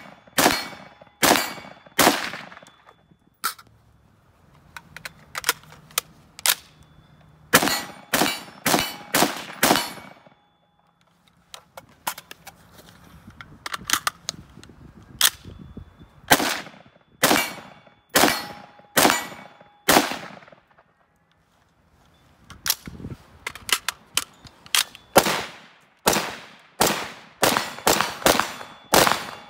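Bushmaster ACR 5.56 semi-automatic rifle fired in strings of rapid single shots, about one to two a second, each sharp crack trailing off, with short pauses between strings. Near the end a second rifle fires alongside it.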